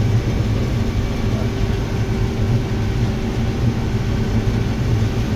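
Combine harvester running steadily while cutting corn: a constant low engine and machinery drone.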